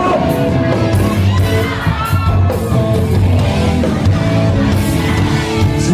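A Thai pop-rock song playing, with band music and a sung line running across a gap in the lyrics.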